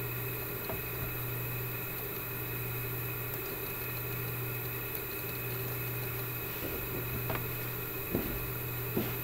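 Steady electrical hum and room noise, with a low drone and a few faint steady tones above it. A couple of small knocks come near the end.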